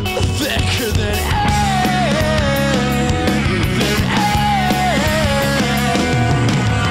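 Loud rock music with driving drums and bass, and a melody line that twice slides down in pitch.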